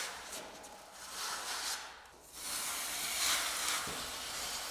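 Long drywall skimming knife scraping across joint compound on drywall in long, hissing strokes, with a short pause about two seconds in.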